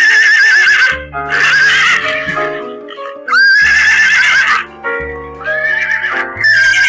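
A horse whinnying several times, each call with a wavering pitch, over background music with a steady bass line.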